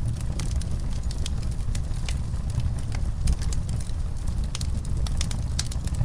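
Log fire crackling in a fireplace: irregular sharp pops and snaps, several a second, over a steady low rumble.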